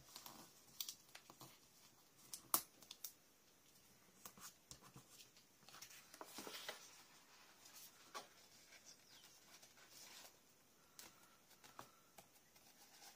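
Faint crafting sounds: washi tape torn off and pressed down onto paper, with scattered light clicks and short paper rustles as sheets are moved and lifted.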